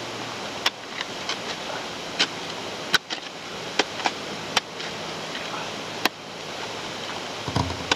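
Scattered sharp clicks and knocks at irregular intervals from hand-digging in the bottom of a dirt pit, over a steady background hiss.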